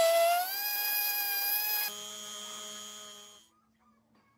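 Handheld rotary tool with an abrasive bit whining at high speed as it grinds the metal edge of an iPhone frame; the pitch sags as the bit is pressed in and then recovers. About two seconds in the sound drops to a quieter, steadier tone that fades away by about three and a half seconds.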